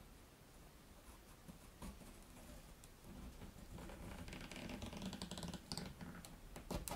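Faint, fast crackling and creaking that builds over a few seconds, with a sharp click near the end: a thin 3D-printed ABS-like photopolymer resin strip being bent by hand against a plastic protractor.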